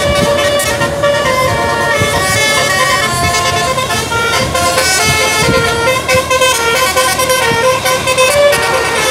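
Bus 'basuri' telolet musical air horn playing a continuous melody, its notes changing several times a second, over the low rumble of the bus.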